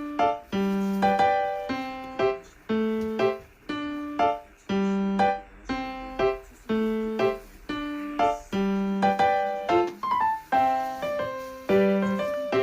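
Background piano music: a light melody of plucked-sounding notes in an even, repeating rhythm.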